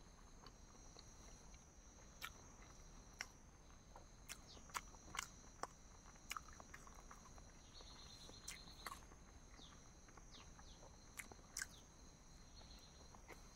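Faint mouth sounds of someone eating boiled eggs: scattered short, sharp clicks and smacks of biting and chewing. Behind them runs a steady high insect drone, with a cricket trilling twice.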